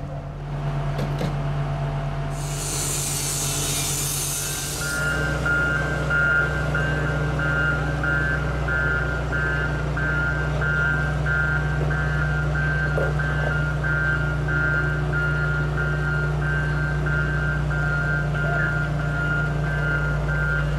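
Engine of a heavy boat-hauling vehicle running steadily, with a hiss of released air lasting about two seconds a few seconds in. Then the engine picks up and a reversing alarm beeps about twice a second.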